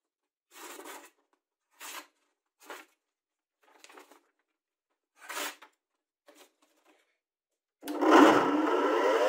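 A kitchen knife slicing through a sheet of paper in about six short strokes, a test of the blade's edge. Near the end a bench grinder is switched on and its motor spins up with a rising whine, the loudest sound here.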